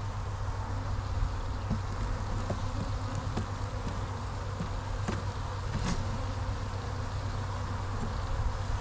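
Many Italian honey bees buzzing steadily around an open hive during a package installation, with a few faint light clicks of hive parts.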